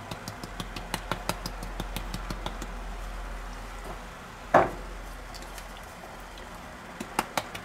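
Pepper mill being twisted over the pot, a run of small, sharp grinding clicks. About four and a half seconds in there is a single dull knock. Near the end another run of quick, regular clicks starts.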